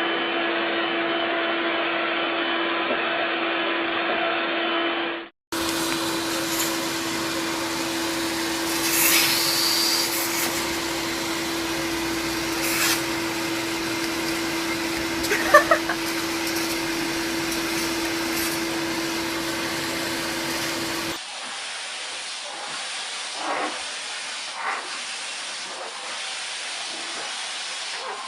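Vacuum cleaner running steadily with a constant whine over its motor hiss. The sound drops out for an instant about five seconds in and comes back. Near the end the whine gives way to a quieter hiss.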